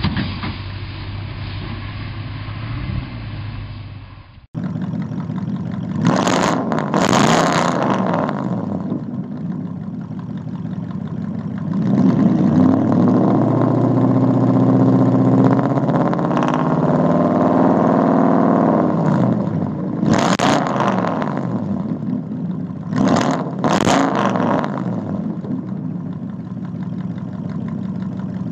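A pickup engine working steadily, cut off suddenly about four seconds in. Then a 2000 Toyota Tundra's 4.7-litre V8 with a true dual cat-back exhaust idles and is revved: two quick blips, one long rev held for several seconds, then a few more blips before it settles back to idle.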